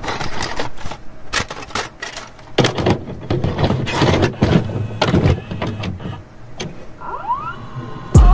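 VHS-style glitch intro effect: irregular bursts of static and mechanical clicks like a tape deck running, with a few warbling pitch sweeps near the end. It ends in a sudden loud, low note.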